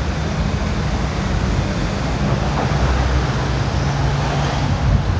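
Steady low rumble of road traffic and vehicle noise, with no distinct single event.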